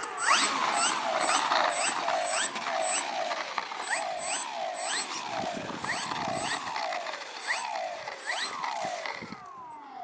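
Servos of a small electric RC aerobatic plane driving its control surfaces back and forth through large throws. They give repeated whines that sweep up and down about twice a second, each stroke topped by a short high whine, and the sound stops just before the end.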